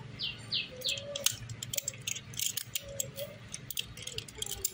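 Metal tools clicking and clinking on a bicycle's rear brake disc bolts as the disc is unbolted. A bird chirps three short falling chirps in the first second.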